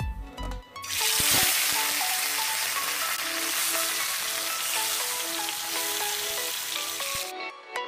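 Mrigal carp steaks sizzling loudly as they fry in hot oil in an iron kadai. The sizzle starts about a second in, holds steady, and cuts off suddenly near the end. Background music with a melody plays under it.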